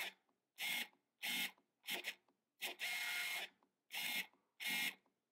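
Screw-driven autofocus of a Nikon 300mm f/4 AF ED-IF lens on a Nikon D300, whirring in about six short bursts as it racks focus back and forth; the mechanism is far from silent.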